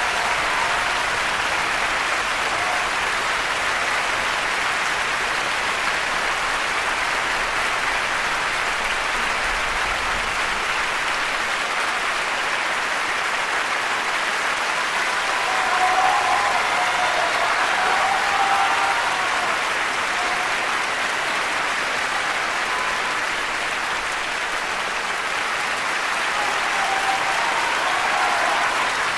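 Sustained applause from a large concert-hall audience, steady and dense throughout. A few voices call out above the clapping about halfway through and again near the end.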